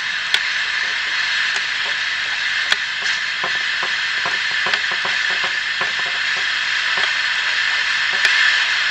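Static hiss from an old wind-up radio's speaker as its AM tuning dial is turned between stations, with scattered clicks and crackles through it.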